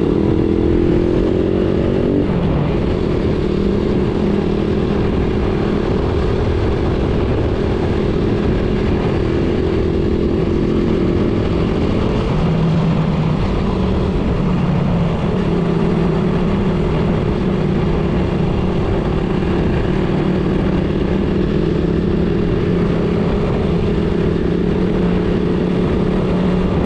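Suzuki Raider 150's single-cylinder four-stroke engine under way. Its pitch rises for the first two seconds, drops at about two seconds as it shifts up a gear, and then holds a steady cruising note, with a rushing noise underneath.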